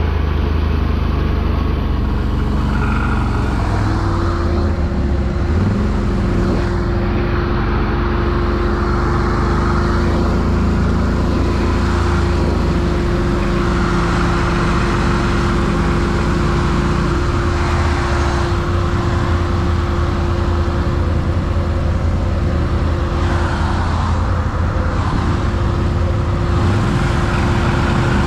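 ATV engine running under way on a trail ride, a steady loud drone whose pitch shifts a little, with a steady whine coming in about four seconds in.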